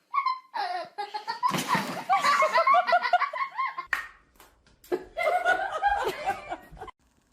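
People laughing hard in quick repeated bursts, in two stretches broken by a short pause about four seconds in.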